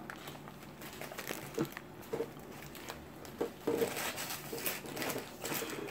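Soft, scattered rustling and crinkling of deli paper sandwich wrappers being handled, with a few light taps.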